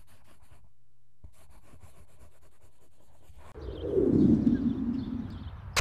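Title sound effects: a fast run of light ticks like typing or a pen scratching, then about three and a half seconds in a loud low whoosh that sinks in pitch and fades, ending in one sharp click.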